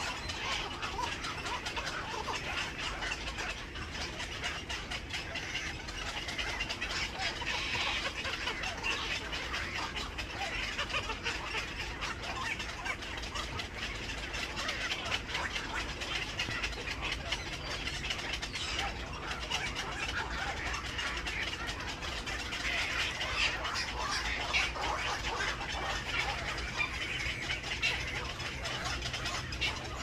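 Continuous dense chatter of many birds calling at once, with many short overlapping calls and no single call standing out.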